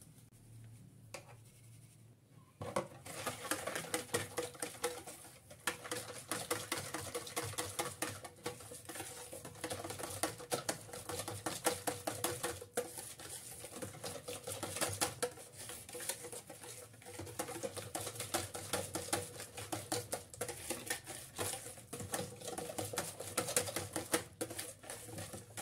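Wire whisk beating a runny chocolate cake batter in a plastic bowl: rapid, continuous clicking strokes that start about three seconds in.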